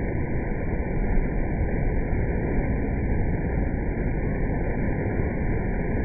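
Baltic Sea surf breaking and washing over a rock in the shallows: a steady rush of water noise, heaviest in the low end, with no single crash standing out.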